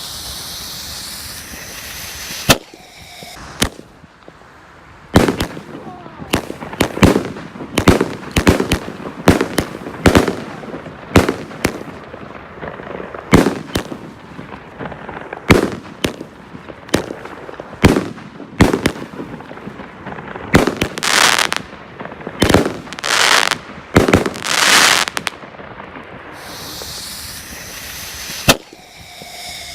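Orion Grande Festival 16-shot firework cake firing: a hiss, then one sharp bang, then a rapid series of sharp bangs from the shots going off about once or twice a second, with a few longer hissing, crackling bursts toward the end.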